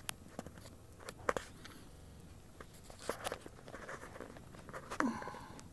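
Faint scattered clicks and taps with light rustling, the loudest tap about five seconds in: small handling noises close to the microphone.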